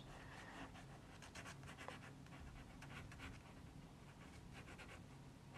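Faint scratching of a pencil sketching on paper, in several short runs of quick strokes.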